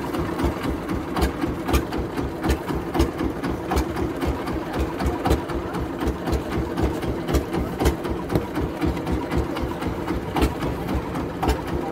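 Wooden passenger boat's engine idling alongside the jetty, a fast, even chugging, with occasional sharp knocks over it.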